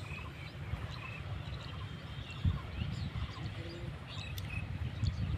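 Small birds chirping and twittering in short calls, over a steady low rumble.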